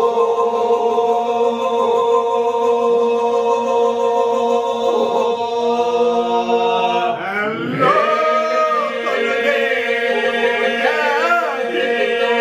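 Men singing Albanian Lab iso-polyphony a cappella: a group holds a steady drone under the song, and about seven seconds in a lead voice rises above it and ornaments the melody.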